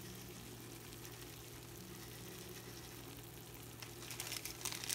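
Hot glass baking dish of tilapia and vegetables sizzling faintly over a steady low hum. The crackling grows louder near the end.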